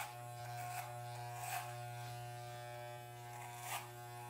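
Corded Wahl electric hair clippers buzzing steadily with a low hum, with a few short rasping swishes as the blades are run up through the hair at the nape of the neck.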